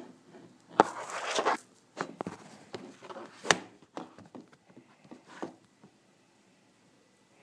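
Handling noise from the recording device: rustling with several sharp clicks and knocks. The busiest rustle is about a second in, and a single loud click falls about halfway through.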